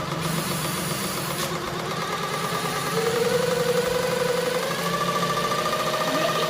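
Homemade scroll saw driven by an electric jigsaw motor, running steadily with a fast, even rattle from the reciprocating blade drive. A whine comes in about halfway through.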